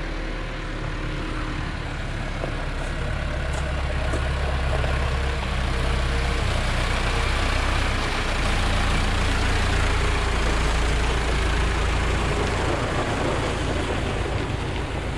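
Landini 8880 tractor's diesel engine running as the tractor is driven. It grows louder for several seconds and eases off near the end.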